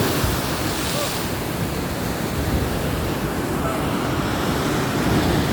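Strong sea wind buffeting the phone's microphone in a steady rumble, over the rush of sea waves.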